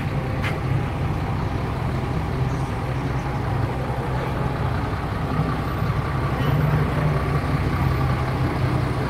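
Bus engine idling steadily at a bus bay, a low even hum, with a short click about half a second in.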